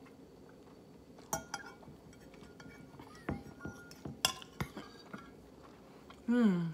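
A metal fork clinking against a ceramic bowl a handful of times as noodles are lifted and eaten, with a short vocal sound near the end.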